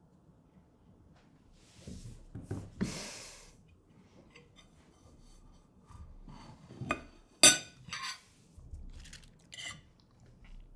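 Knife and fork clinking and scraping on a plate during a meal, in scattered small clicks, with one sharp clink about seven and a half seconds in the loudest. A short rush of noise comes about three seconds in.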